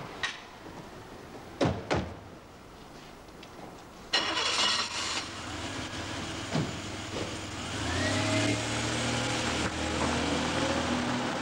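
Two car doors shut in quick succession, then about four seconds in a car engine starts and runs, getting louder from about eight seconds in as the car moves off.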